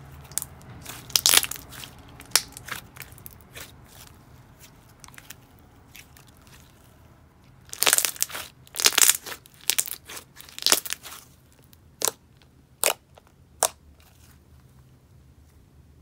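Thick cloud-cream-type slime being squeezed, pressed and stretched by hand, giving sharp crackles and pops: a cluster about a second in, a dense run of crackling about eight to eleven seconds in, then three single pops.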